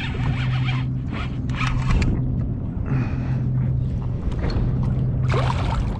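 Fishing reel being cranked in short bursts of rasping during a retrieve, over a steady low hum.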